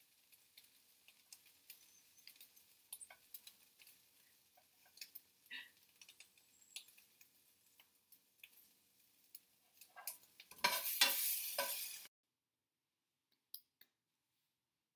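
Chopped green vegetables sizzling in a frying pan over a gas flame, with faint scattered crackles and pops. About ten and a half seconds in, a louder rush of noise lasts about a second and a half, then cuts off suddenly to near silence with a couple of faint clicks.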